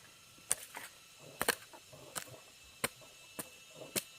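A series of sharp knocks or taps, about seven in all, coming at an uneven pace of roughly one every half second to second.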